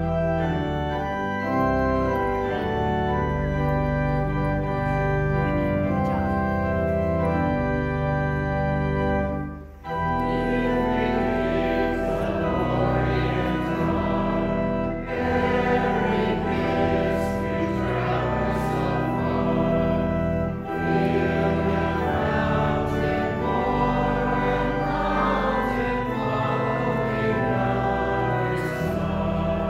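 Organ playing sustained chords, with voices joining in singing along from about ten seconds in.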